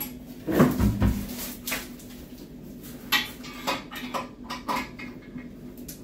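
Knocks and clicks of hand work on a wall-hung ceramic toilet pan: an Allen key working the fixing grub screws behind the pan, with one heavier low thump about a second in, then a run of sharper clicks and taps.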